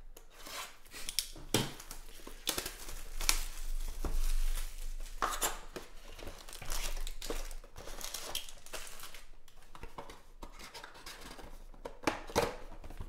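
Plastic shrink wrap torn off a Panini Prizm trading-card box and crinkled, with the cardboard box handled and its lid opened. Irregular crackles and scrapes, busiest in the first half and again near the end.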